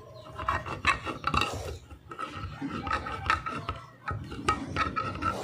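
A hand-held can opener cutting around the rim of a tin can, the can turned a little between cuts. The metal scrapes in a run of short, irregular strokes with small clicks.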